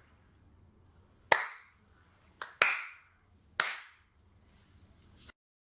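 Four sharp claps, unevenly spaced: one about a second in, two close together near the middle, and one more a second later, each dying away quickly.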